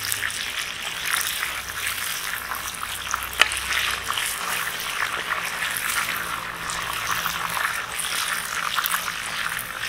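Fish pieces deep-frying in hot oil in a large iron kadai, the oil bubbling and crackling steadily. A single sharp click about three and a half seconds in.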